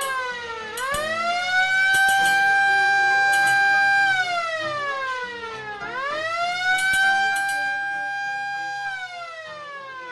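A siren-like wailing tone, rich in overtones, that sweeps up quickly, holds its pitch for about two seconds, then slides slowly down, twice. It is falling as it begins and falling again near the end.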